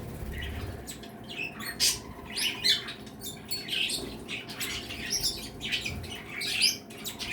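A mixed flock of pet birds chirping and squawking, many short overlapping calls from several birds at once.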